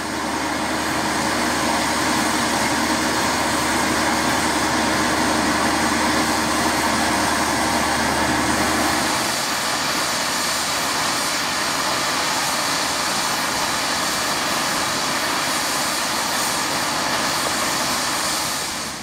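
Bulleid West Country class steam locomotive 34092 'City of Wells' standing with steam hissing loudly and steadily. A low hum under the hiss stops about nine seconds in while the hiss carries on.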